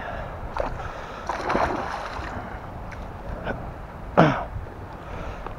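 Water splashing in short irregular bursts as a hooked pike thrashes at the surface beside a landing net, with one louder splash about four seconds in.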